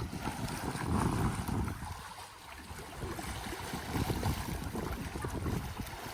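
Wind buffeting the microphone in uneven gusts, a rumbling low noise that dips for a moment about two seconds in.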